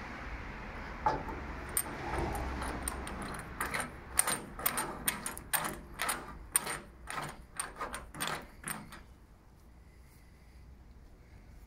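Metal clicking and clinking as a chrome winged radiator cap with a motometer is turned onto the radiator's filler neck: a run of sharp clicks, about two a second, that stops about nine seconds in.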